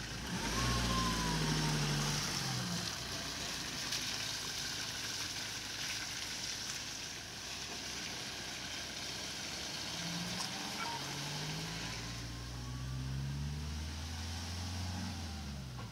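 Light flatbed truck's engine running as it drives off, its note rising in pitch as it accelerates: once in the first few seconds and again from about ten seconds in.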